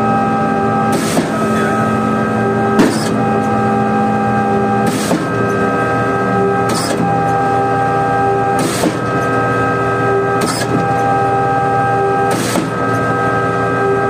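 Putzmeister 49-5 concrete pump running, with a steady mechanical drone of several held tones and a sharp clack about every two seconds as the swing-tube valve shifts over at each pumping stroke. The mechanics put the pump's trouble down to low accumulator pressure.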